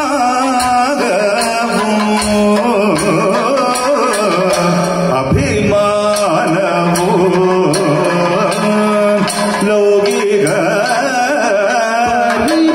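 Live Kathakali music: vocalists singing a padam with wavering, ornamented melody, over continuous strokes of the maddalam and chenda drums.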